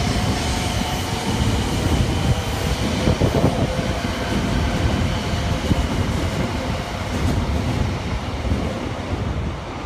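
A Shinkansen high-speed train passing through a station at speed without stopping: a loud, steady rush of wheels on rail and air, easing a little near the end.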